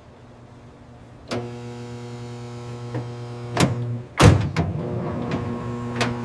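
Microwave oven switching on with a click and running with a steady electrical hum, broken by a few clicks and one loud thump about four seconds in.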